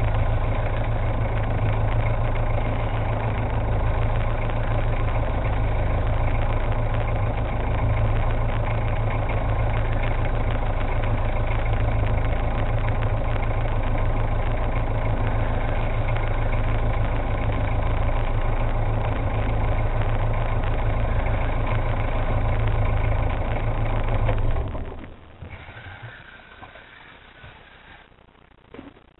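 Boat engine idling steadily with a deep hum, then cut off abruptly near the end.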